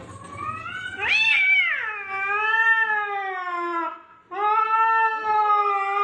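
Cat yowling in two long, drawn-out calls. The first swells and rises in pitch about a second in, then falls and holds; after a brief break at about four seconds, a second long yowl follows.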